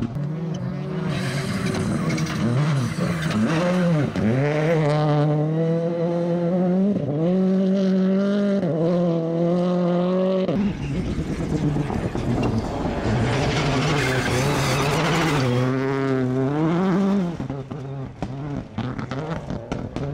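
Rally car engines at full throttle on a gravel stage, the pitch climbing and dropping back several times as the cars accelerate through the gears. About ten seconds in a second car takes over with a rough, rumbling noise under the engine, which climbs and then eases off near the end.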